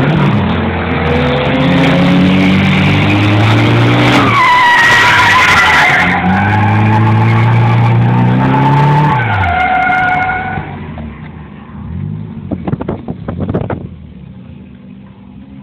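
Drift car engines revving hard up and down, with tyres squealing through a slide, heard from inside the cabin. About ten seconds in the revs and squeal ease off, followed by a few short sharp bursts and quieter running near the end.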